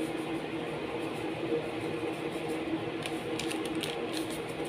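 A steady low hum and hiss, with a few light clicks of a metal spoon against an aluminium cooking pot about three to four seconds in as powdered soup mix is stirred into the simmering broth.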